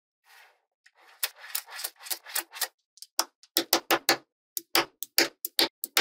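Small magnetic balls clicking and rattling against each other as strips of them are snapped onto a build. It begins with a dense rattling clatter, then turns to separate sharp snapping clicks, about two or three a second.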